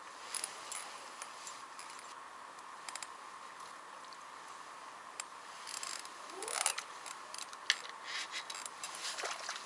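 Faint scattered clicks and rustles of a float-fishing rod and tackle being handled, with a short rising squeak a little past halfway.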